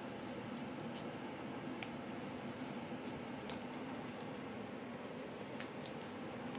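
Sweet chestnut shells being peeled with the fingers and picked at with a small knife: a handful of faint, scattered clicks and cracks over a steady background hum.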